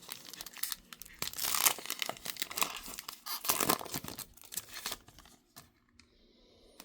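Trading card pack wrapper being torn open and crinkled, a dense crackling rustle that dies down about five seconds in.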